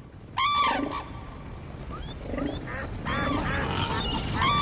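Animal stampede sound effect: three loud animal calls that each rise and fall in pitch, over a rumble that builds steadily louder, with short high chirps in between.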